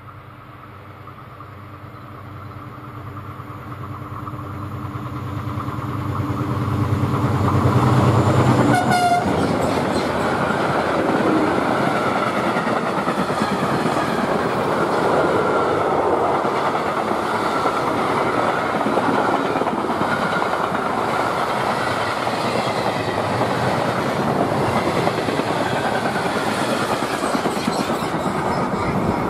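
DB Class 265 diesel-electric freight locomotive approaching, its engine note growing steadily louder, with a short horn toot about nine seconds in. Then a train of tank wagons rolls past, giving a steady, loud rolling noise of wheels on rails.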